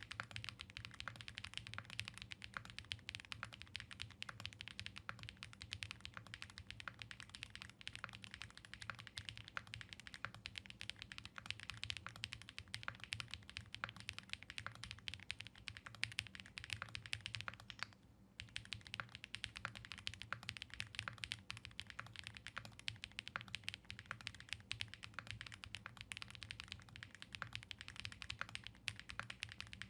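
Fast, continuous typing on an Angry Miao Cyberboard mechanical keyboard fitted with the Typing Experience Upgrade Kit, its keys clicking in quick succession. The keystrokes stop for about half a second near the middle.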